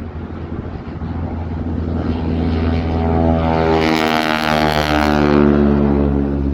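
Propeller airplane flying past low and loud, its engine note swelling and then dropping in pitch as it passes.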